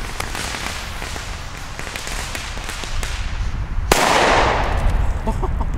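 FireEvent Super II firecracker: the lit fuse hisses and sputters for about four seconds, then the firecracker goes off with one sharp, loud bang, followed by small ticks of scattered debris.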